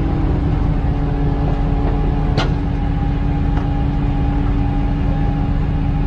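Tow truck engine running steadily with a constant hum, and a single sharp click about two and a half seconds in.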